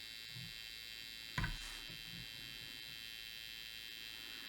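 ZIG X-70 caravan battery charger's switch-mode power supply running with a steady high-pitched buzz. A single short knock about a second and a half in.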